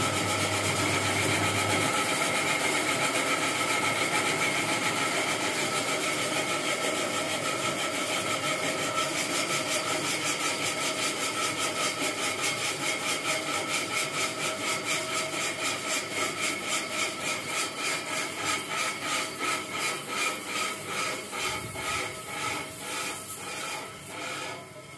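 Home-built foam-cutting machine running with a steady mechanical whir. In the second half a rhythmic beat appears and slows, and the sound fades as the machine runs down.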